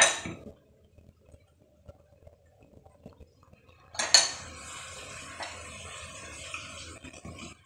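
A metal spoon clinking against a small glass bowl while soy sauce is measured out by the spoonful: a short clink at the start and a sharper one about four seconds in. A steady hiss follows the second clink until near the end.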